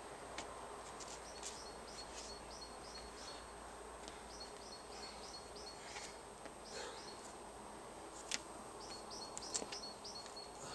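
Pine-forest ambience with small birds singing rows of short, repeated high chirps over a steady outdoor hiss. There are a few short, sharp taps, the loudest a little past eight seconds and another around nine and a half seconds.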